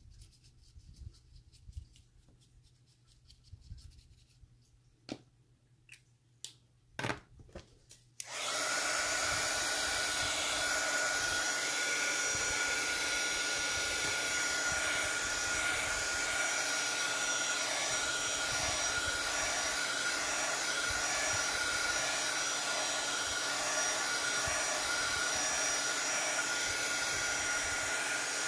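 A few light taps and paper-handling clicks, then about eight seconds in a craft heat tool switches on and blows steadily, with a faint whine in its fan noise, drying the wet water-colour on the page.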